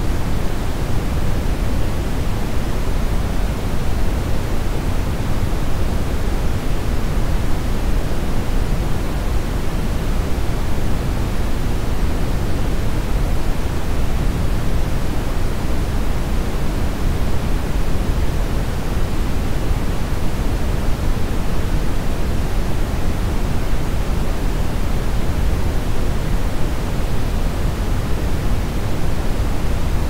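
Brown noise: a steady, even rushing hiss weighted toward the bass.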